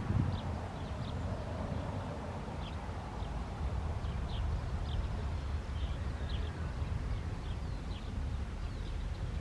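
Low, uneven rumble of wind on the microphone, with small birds giving short high chirps about once or twice a second.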